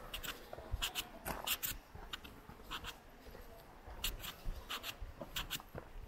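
Footsteps of a person walking, a series of short scratchy steps at a steady walking pace with a few soft low thumps underneath.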